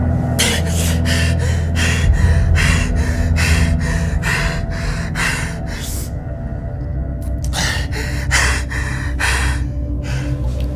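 A man gasping and sobbing in sharp, rhythmic breaths, about two or three a second, the strained breathing of someone giving chest compressions; the breaths pause for a moment about six seconds in, then start again. A low, sustained dramatic music drone runs underneath.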